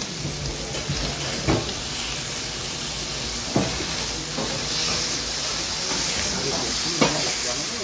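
Kobe beef steak sizzling on a hot steel teppanyaki griddle, a steady hiss, with three sharp clinks of the chef's metal spatula and knife striking the griddle as the steak is cut up.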